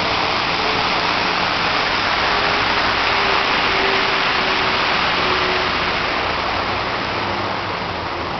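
A steady rushing noise that eases a little near the end, with a faint wavering tone underneath.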